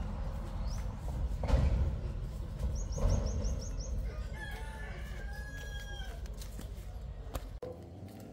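A rooster crows once, a long call lasting about two seconds, midway through, over a steady low rumble of traffic on the road. Just before it, a small bird gives a quick run of high chirps.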